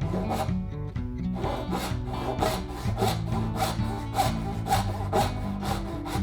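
Hand saw cutting wood in even back-and-forth strokes, nearly two a second.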